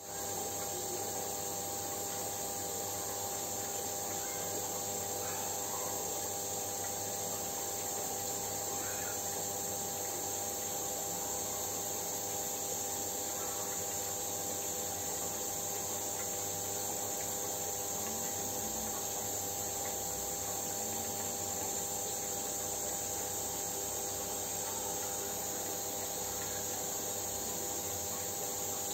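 A steady hum made of several held tones under an even, high-pitched hiss, unchanging throughout.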